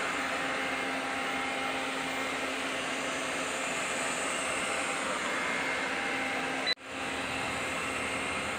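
Robot vacuum cleaner running over a rug, a steady hum of its motor and brushes. Near the end a brief click and a moment's dropout break the sound, then the same steady running resumes.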